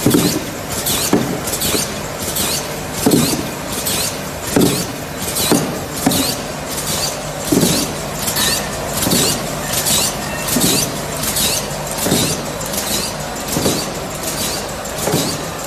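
Eraser wrapping machine running in steady cycles. Short hisses repeat a little more than once a second, with a lower thump about every second and a half, over a steady hum.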